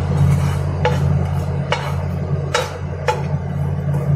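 Metal spoon clinking and scraping against a pan while whole spices are stirred and dry-roasted over a low flame: four sharp ringing clinks at irregular intervals of about a second, over a steady low hum.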